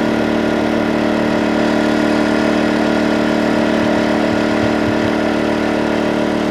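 A small engine idling steadily at an unchanging pitch.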